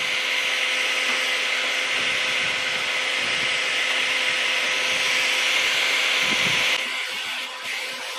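Electric hot-air gun blowing steadily, a fan motor with a strong hiss of hot air, heating a van's vinyl decal foil to soften the adhesive for peeling. The blowing drops in level about seven seconds in.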